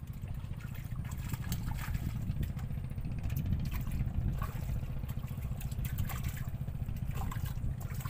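Small engine running steadily, with a fast, even low pulsing.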